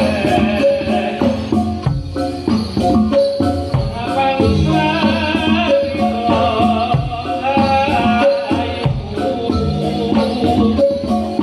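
Live Javanese percussion music accompanying a Reog dance: drums and tuned metal percussion playing a steady, continuous rhythm.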